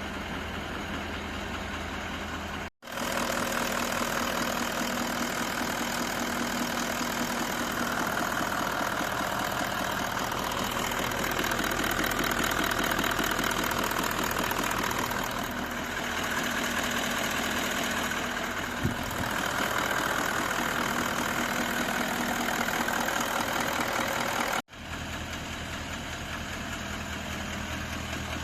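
Toyota 1VD-FTV 4.5-litre twin-turbo V8 diesel idling at full operating temperature, with the hard-to-hear knock that appears once this engine is warm. The sound cuts out twice, a few seconds in and near the end, and is louder between the cuts.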